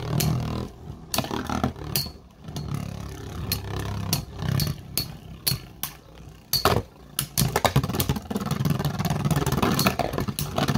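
Two Beyblade spinning tops, Ninja Salamander and Ronin Dragoon, whirring in a plastic stadium with a steady low hum and many irregular sharp clacks as they strike each other and the stadium walls.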